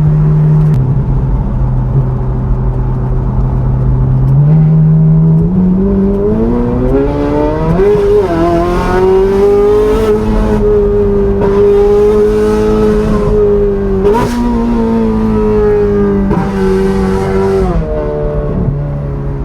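Ferrari engine with an exhaust modified for an F1-like sound, running while driving: a low steady drone for several seconds, then revs climb and hold high, and drop back in two steps near the end.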